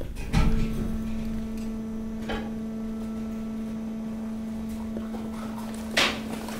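Hydraulic waste press's power unit humming steadily, with a few knocks and clatters, the loudest about six seconds in.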